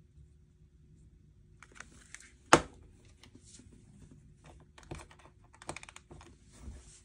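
Hands handling small parts and tools on a workbench: scattered light clicks and taps, with one sharp click about two and a half seconds in, the loudest.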